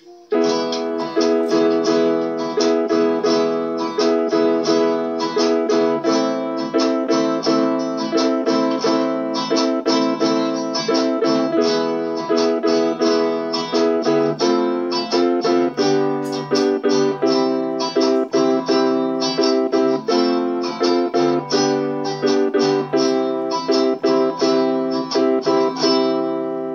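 Strummed guitar backing track in a candombe rhythm, with chords played along on an electronic keyboard. It starts abruptly and fades out near the end.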